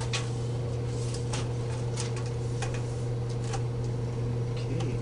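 A steady low hum, with faint scattered ticks and scrapes from a tape measure being handled along a wooden board.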